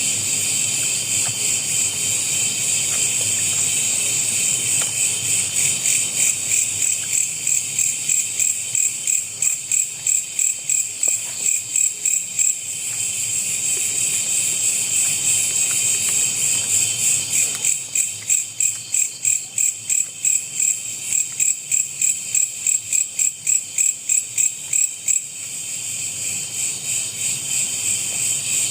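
Loud chorus of night insects: a steady high-pitched shrill that at times pulses evenly about three times a second.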